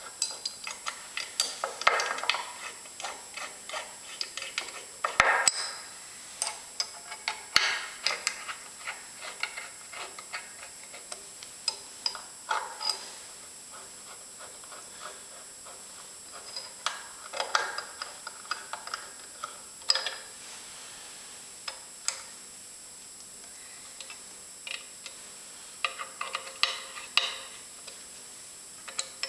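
Irregular light metallic clicks and taps from a bearing flange, shaft and bolts being fitted by hand to a cast-iron lathe apron. They come in scattered clusters with short pauses between them.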